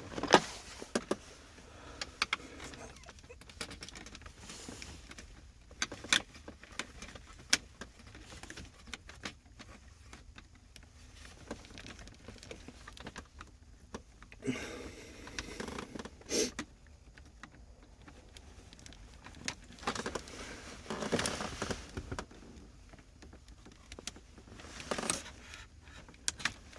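Scattered clicks, knocks and plastic rubbing as an Infiniti FX35's plastic center-console trim piece is worked loose by hand, its clips giving way.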